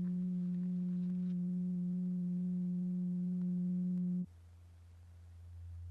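Steady pure electronic tone, the sound used to vibrate the powder-covered diaphragm. About four seconds in it cuts off abruptly and gives way to a quieter, lower steady tone that slowly grows a little louder.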